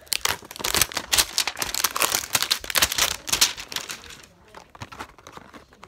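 Wrapping on a trading-card box crinkling and tearing in quick, dense crackles as the box is unwrapped, thinning out about four seconds in.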